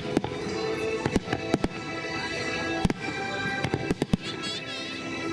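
Fireworks display: many sharp bangs of bursting shells at irregular intervals over music played with the show. A high wavering whistle from whistling fireworks comes about four seconds in.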